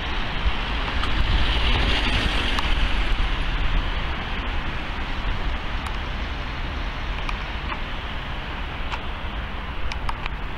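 City road traffic: the steady noise of cars passing on the street, swelling as a vehicle goes by about two seconds in, over a low rumble.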